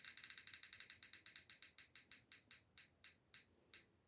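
Faint ticking of a phone spin-the-wheel roulette app as its wheel spins, rapid clicks at first that slow down steadily as the wheel winds down.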